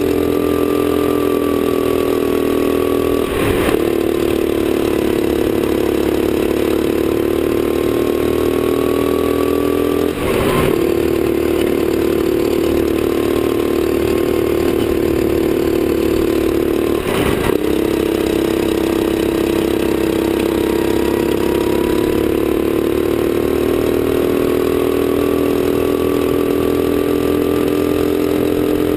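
Sodi kart's engine, heard from on board and running near full throttle. Its pitch climbs slowly along the straights and falls off sharply three times, about seven seconds apart, as the driver lifts or brakes for the corners.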